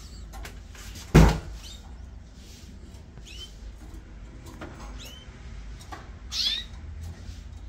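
Canaries giving a few short, high chirps with a bend in pitch, the last one the loudest. A single loud knock comes about a second in.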